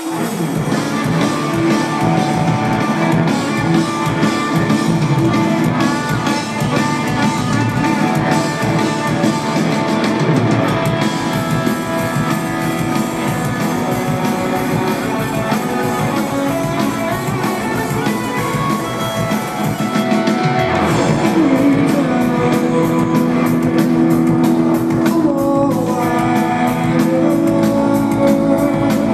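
A live rock band playing loud electric guitar, bass and drums, heard from within a concert audience.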